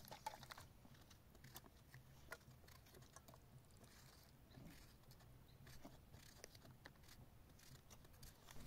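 Near silence: faint room tone with a low hum and scattered soft clicks and ticks.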